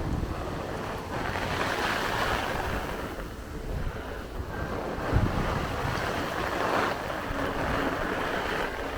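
Heavy rain and gusty storm wind, a steady rushing noise that swells and falls back in surges, with wind buffeting the microphone as a low rumble.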